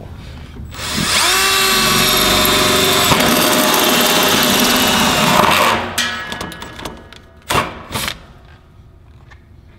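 Cordless drill driving a 3/4-inch hole saw through a metal drum lid. It spins up with a rising whine about a second in, cuts steadily for about five seconds, then stops. Two sharp knocks follow near the end.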